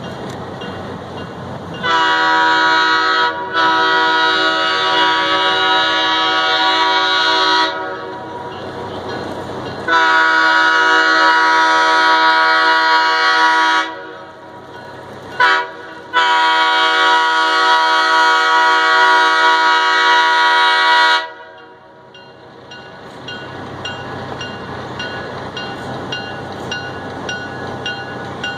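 An approaching train sounds its multi-tone horn in the grade-crossing pattern of long, long, short, long. A steady rumble then grows as the train draws nearer.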